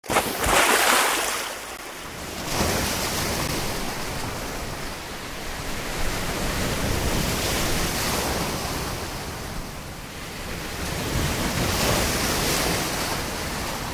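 Sea surf: small waves breaking and washing in shallow water, swelling and easing in surges, the loudest about a second in.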